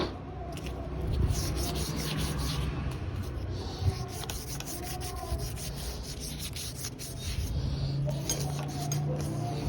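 Repeated back-and-forth rubbing strokes on a motorcycle part being worked by hand, with a low hum that grows stronger near the end.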